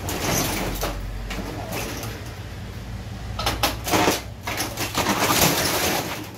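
Steel roll-up shop shutter rolling up and down, its slats rattling and clattering, loudest in two spells in the second half. It runs freely through its full travel after its torn bracket was welded and its springs rewound.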